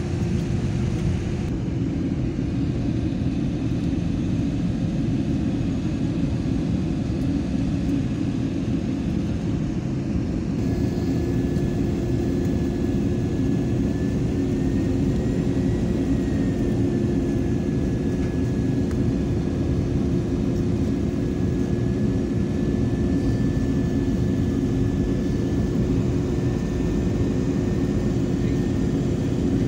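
Jet airliner cabin noise at a window seat beside the underwing turbofan engine on final approach: a steady engine drone and airflow rumble with a low hum. A faint higher whine comes in about ten seconds in.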